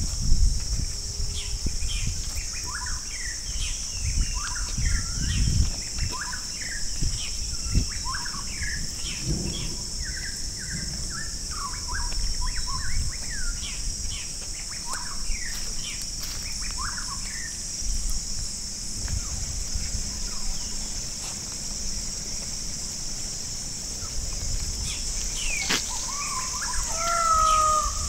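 Birds chirping in forest, many short quick calls over a steady high-pitched insect drone, with irregular low rumbles underneath. A louder, wavering call comes in near the end.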